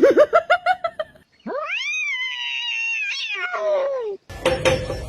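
A cat caterwauling: a quick run of short cries, then one long drawn-out yowl that rises and then falls. It is followed near the end by a series of knocks.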